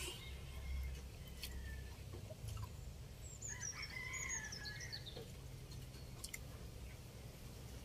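A rooster crowing once, faint and distant, about three seconds in.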